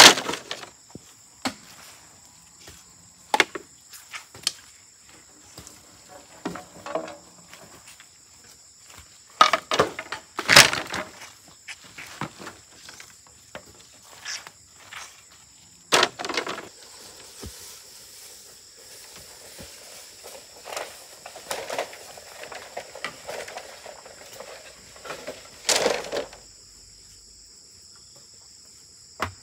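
Scattered clatters, knocks and scrapes of rubbish being picked up and cleared, the loudest about ten seconds in. Under them runs a steady high drone of insects.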